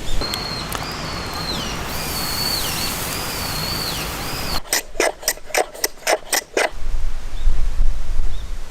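A steady rushing noise with a thin whistle that repeats and dips several times. It gives way to a quick, even run of about eight sharp knocks, roughly four a second, then a low rumble.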